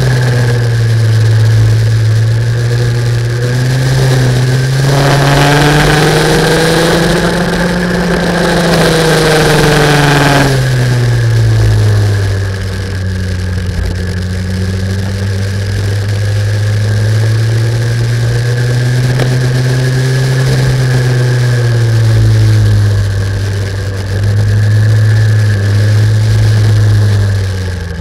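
Racing kart engine heard from onboard at race speed. Its pitch climbs and falls several times as the kart accelerates and slows, over steady wind rush.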